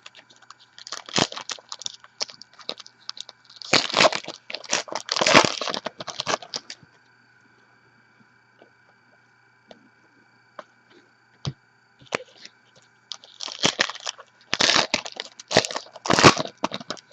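Trading cards and a foil pack wrapper being handled: crackling, crinkling rustles in two bunches of quick bursts, with a quiet stretch and a single click between them.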